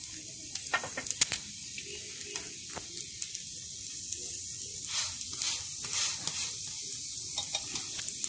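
Semolina dosa frying on a hot non-stick tawa: a steady sizzling hiss with scattered crackling pops.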